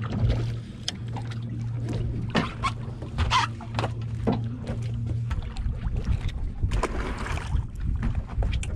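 Spinning reel being cranked and fishing gear handled on a small boat: scattered clicks and knocks over a steady low hum, which stops about five seconds in.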